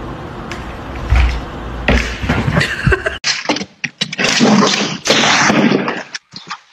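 Thumps and scraping as a cat bats a round toy across a wooden floor. About three seconds in there is a sudden cut, and then louder scuffling and knocks as a cat jumps onto a table beside a laptop.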